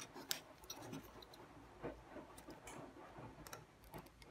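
Faint, scattered clicks and light scrapes of a washing-machine control board being handled while its triac heatsink clip is pushed back into place.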